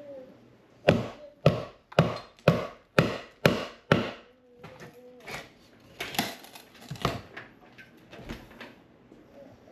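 Hammer striking wood framing, seven sharp blows about two a second, followed by lighter knocks and scraping of the wood.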